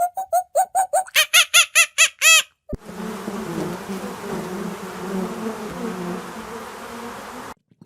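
A fast run of short, pitched bird calls, about five a second, then a sudden change to a steady insect buzz that lasts about five seconds and stops abruptly.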